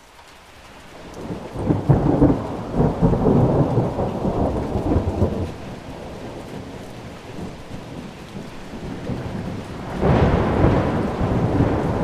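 Wind buffeting the microphone in gusts: a low rumble that builds over the first couple of seconds, eases off through the middle, and rises again near the end.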